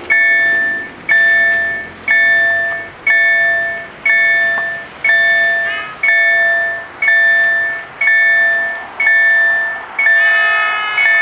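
Railroad level-crossing warning bell striking about once a second, each strike ringing out with a bright, fading tone before the next. The bell is signalling that a train is approaching.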